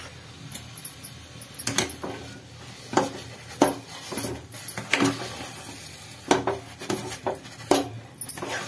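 Long metal spoon knocking and scraping against the sides of a metal kadai while stirring thick semolina halwa, with a knock roughly every second.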